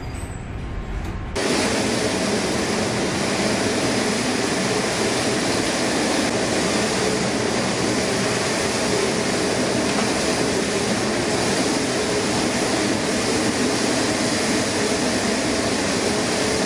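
Steady rushing noise of storm wind and heavy sea heard from a container ship's bridge, with a faint steady hum under it. A deep rumble gives way abruptly to a brighter hiss about a second and a half in.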